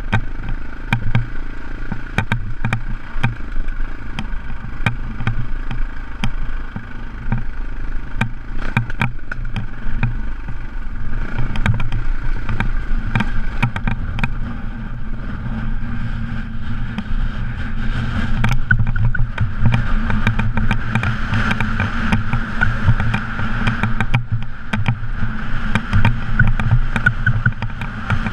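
KTM off-road motorcycle engine running steadily as it rides over rough, stony ground, heard from on the bike, with many short knocks and rattles from the bumps. A rushing noise grows louder in the second half.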